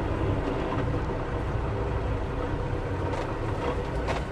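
Semi truck's diesel engine running at low speed, a steady low rumble heard from inside the cab while the truck is slowly reversed into a parking spot, with a couple of faint clicks near the end.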